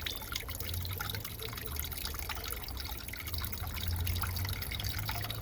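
Water trickling steadily, with many small drips.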